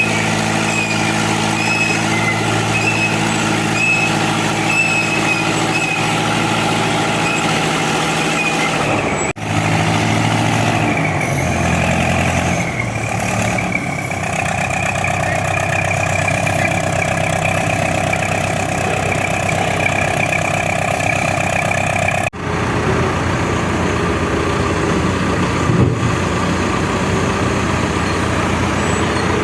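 Heavy diesel engines of the bulldozers and the self-loader truck running steadily, with the engine note shifting for a few seconds about a third of the way in. The sound changes abruptly twice.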